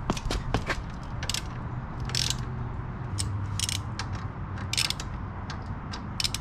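Socket ratchet wrench clicking in short, irregular strokes while working a motorcycle bolt, about a dozen runs of clicks.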